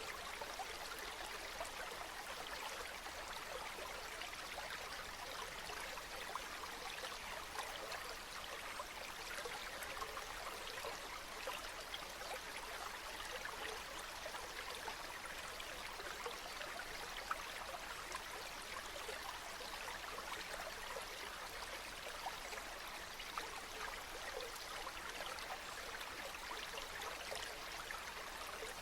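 Small brook flowing, a steady babble of water running over stones with many fine splashes and trickles.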